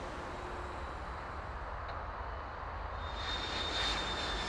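Jet airliner's engines running at takeoff power: a steady low rumble and rushing noise. A high, thin engine whine comes in about three seconds in and begins to fall in pitch as the aircraft passes.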